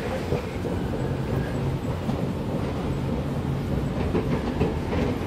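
Long station escalator running, a steady mechanical hum with faint clattering from the moving steps.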